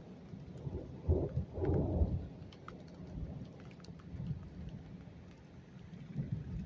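Thunder rumbling during a rainstorm, swelling about a second in and then fading, with scattered raindrops ticking.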